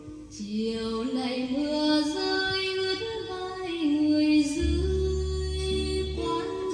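Music: a melody of held notes moving up and down in steps, with low bass notes coming in about four and a half seconds in.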